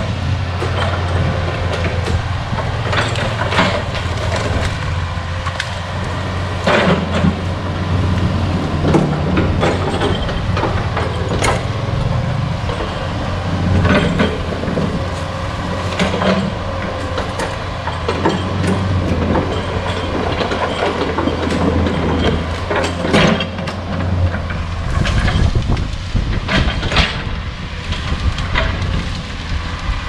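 Komatsu PC40 mini excavator's diesel engine running steadily under load, with irregular sharp knocks and cracks from the machine working out tree stumps and roots.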